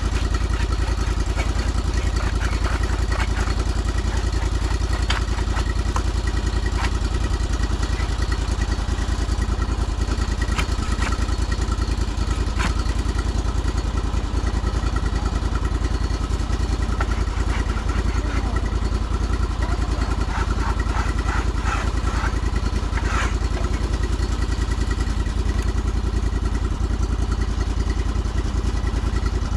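Sawmill's engine running steadily at an even speed, with scattered light clicks and rattles over it.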